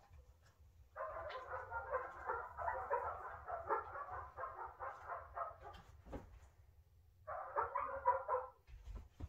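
A dog barking in a fast run of short barks for about five seconds, then a second, shorter run near the end.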